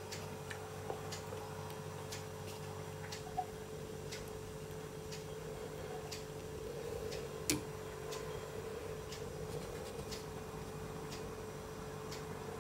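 Faint, regular ticking, roughly one or two ticks a second, over a steady low hum, with two slightly louder clicks a few seconds apart.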